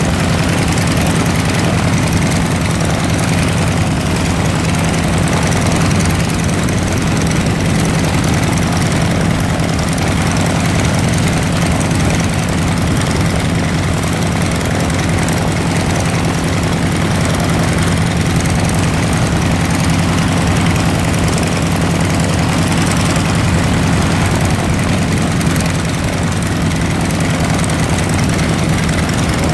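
Piston engine of a vintage high-wing taildragger light aircraft, Lycoming-badged, idling on the ground with the propeller turning: a steady low drone that holds the same speed throughout.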